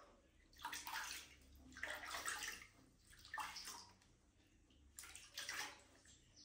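Faint splashing of bath water in four short bursts, a second or so apart.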